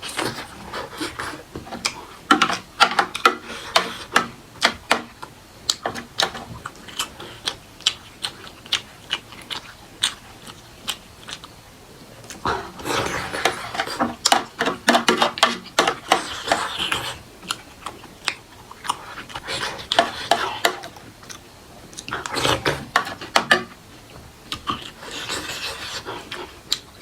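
Close-miked chewing and mouth sounds of a person eating, made up of many quick sharp clicks and smacks that come in bursts of a few seconds with short pauses between.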